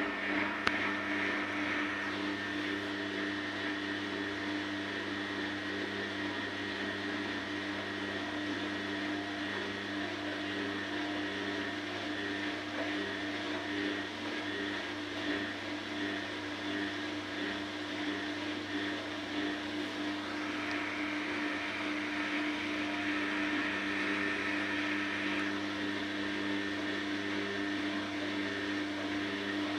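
Samsung front-loading washing machine spinning a wet blanket in its drum. The motor gives a steady hum with a constant whine.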